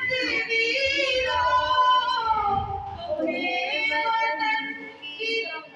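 A girl singing into a handheld microphone, her voice amplified, in long held notes that waver in pitch; one phrase ends about three seconds in and a second ends near the end.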